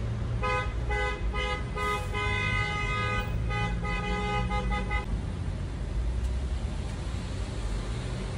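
A car horn sounding in a string of about eight toots, some short and a few longer, for about four and a half seconds, then stopping. A low steady rumble runs underneath.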